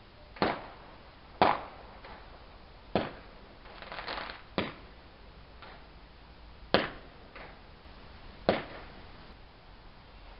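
Distant fireworks going off: six sharp bangs spread irregularly, each with a short fading tail, and a brief crackle about four seconds in.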